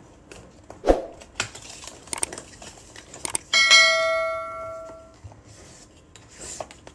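A bell chime sounds once and rings out, fading over about a second and a half. It is the ding of a subscribe-button overlay, and a few clicks and a soft knock come before it.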